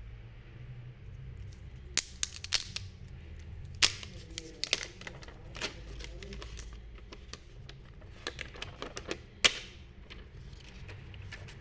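Irregular sharp clicks and taps of a smartphone and its box and accessories being handled on a hard surface, in scattered clusters with the loudest single clicks about four seconds in and near nine and a half seconds.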